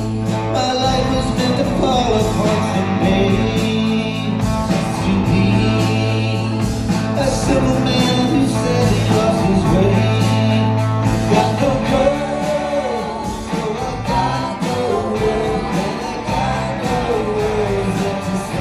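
Live rock band playing a blues-rock song, with guitar, a steady bass line, drums and keyboards under a wavering sung vocal line, recorded by a phone in the audience.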